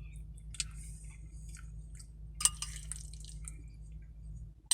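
A man chewing a mouthful of spaghetti close to the microphone: small wet mouth clicks and smacks, one sharper about halfway through, over a steady low hum.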